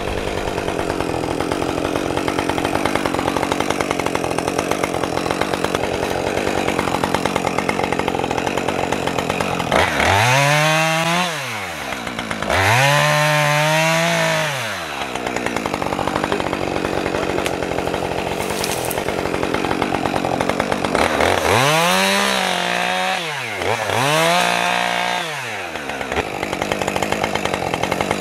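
Gas chainsaw running at idle, revved up to full throttle four times for about two seconds each. Each time the pitch climbs, holds, then drops back to idle.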